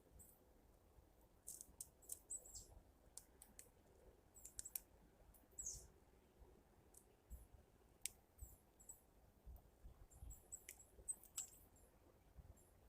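Faint, scattered high-pitched bird chirps and sharp ticks, coming irregularly a few times a second, none loud.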